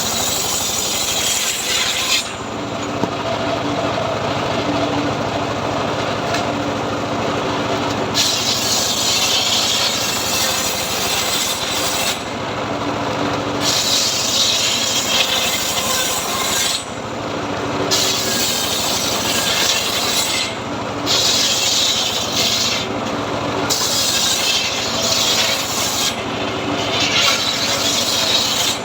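Homemade motor-driven sawmill saw cutting teak wood, running steadily, with a rasping cutting noise that comes and goes every few seconds as the blade works through the timber.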